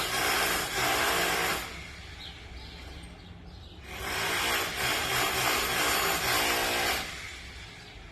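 Electric demolition hammer hammering in two bursts for demolition work: one running until about a second and a half in, the second from about four to seven seconds in, with quieter pauses between.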